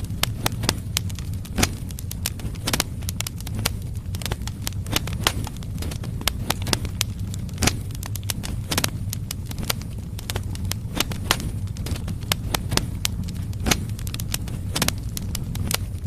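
Firewood burning in a fireplace: logs crackling with many irregular sharp pops, several a second, over a steady low rumble.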